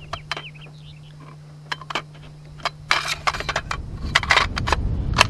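Metal parts of a 12-gauge pump shotgun clicking and clacking as it is handled and put back together after field-stripping. Separate sharp clicks come first, then from about three seconds in a run of louder sliding and scraping of metal on metal.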